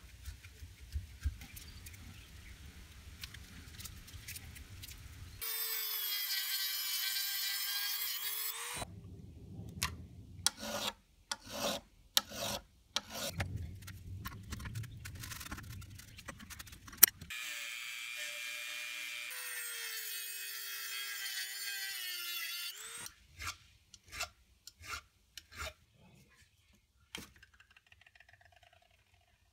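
Metal clicks, knocks and scrapes as pliers and a pry tool work apart the rusted parts of a folding pocketknife. Two stretches of a few seconds each carry the whine of a small power tool cutting through the knife's bent steel pin, its pitch sagging under load.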